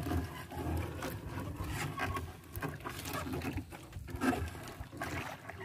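Wet triple (trammel) fishing net rustling and pattering as it is handled and heaped on the boat, with irregular scratchy crackles and drips.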